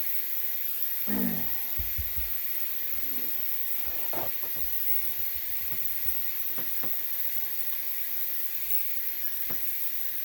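Ultrasonic parts cleaner running with a steady high-pitched buzzing hum, with a few light knocks and clicks of parts and the saw being handled.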